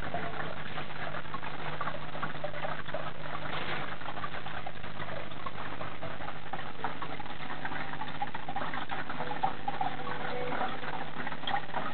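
Steady low hum of aquarium equipment, with crackly noise and small clicks over it.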